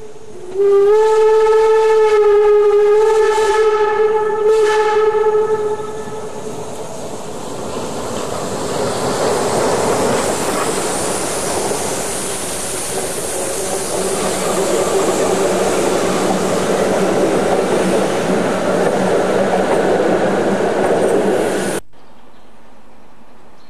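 Steam whistle of a Harz metre-gauge 2-10-2 tank locomotive giving one long blast of about five seconds, its pitch stepping up slightly just after it starts. Then the locomotive and its coaches run close past in a steady rush of running noise, which cuts off suddenly near the end, leaving a quieter background.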